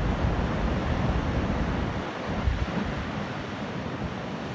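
Rough sea surf crashing against the shore, with strong wind buffeting the microphone.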